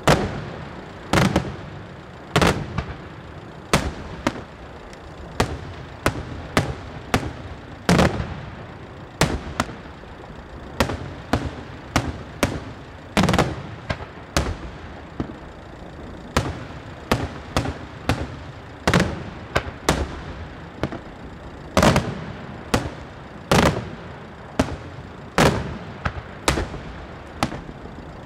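Daytime aerial fireworks bursting overhead in a steady barrage of sharp bangs, about one loud report every second with smaller cracks in between.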